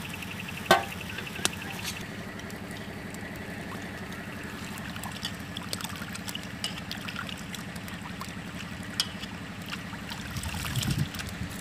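Rice being washed by hand in water in a metal bowl: water swishing and trickling, with scattered small clicks and one sharp click about a second in, over a steady low hum.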